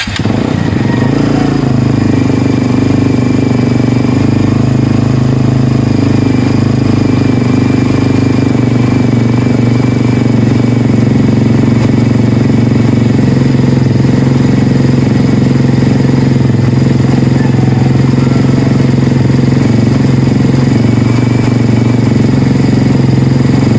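Kawasaki Barako II 175 motorcycle's single-cylinder engine catching right at the start and then running steadily at idle, loud and even, with the choke on for a cold start.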